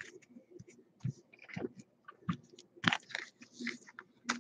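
Stack of glossy Donruss Optic baseball cards being flipped through by hand: irregular clicks, slides and snaps of card against card, the sharpest about three seconds in and near the end.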